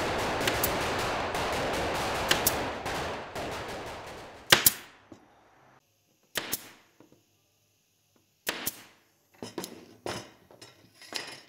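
Gunfire: a dense crackle of many shots fades out over the first few seconds and ends in one loud shot about four and a half seconds in. After that come a few separate sharp shots, some in pairs, spaced one to two seconds apart.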